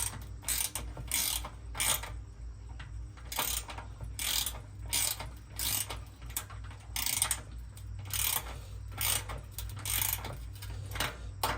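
Hand ratchet wrench tightening the nut on a lid-latch bolt, clicking through short back-and-forth strokes about twice a second, with a short pause about two seconds in.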